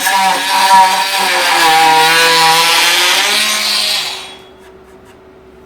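Milwaukee C12 MT 12-volt cordless oscillating multi-tool running with a blade against the work, shaving along an edge. Its whine sags and recovers in pitch as the blade bites. It is switched off about four seconds in and winds down quickly.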